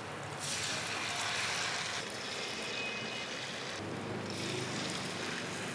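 Batter-coated stuffed potatoes deep-frying in hot oil, a steady sizzle and bubbling that grows a little louder about half a second in as more coated potatoes go into the oil.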